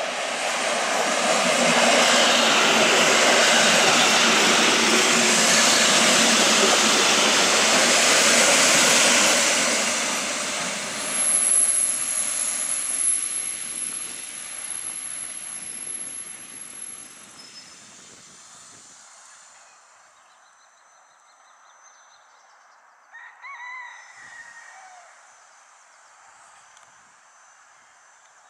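PKP class EN57 electric multiple unit arriving: the train runs past loudly on the rails for about ten seconds, then slows with a thin high whine and its noise fades away as it draws to a stop. A short call with a falling end sounds near the end.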